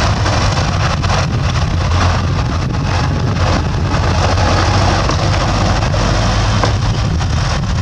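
Bulldozer's diesel engine running steadily at working revs, with a low hum and small knocks and rattles throughout.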